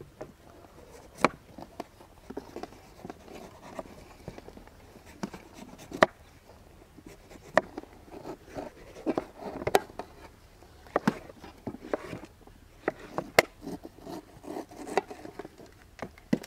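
Kitchen knife cutting the rind off a muskmelon and knocking against a plastic cutting board: scattered sharp taps a second or several apart, with soft scraping of the blade through the fruit between them.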